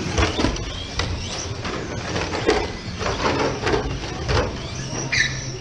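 Electric RC race cars running on a track: the whine of their motors sweeps up and down in pitch as they accelerate and brake, over a steady noise of tyres, with scattered knocks and clatters.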